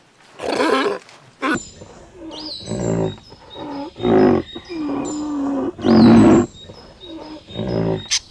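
A sea lion gives one bark, then a large animal calls loudly again and again, including one long, low, steady call. Small birds chirp over it.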